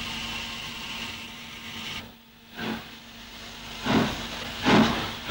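Steam locomotive hissing steadily, then after a short break, exhaust chuffs starting up slowly as it gets under way, roughly one every half to one second and growing louder.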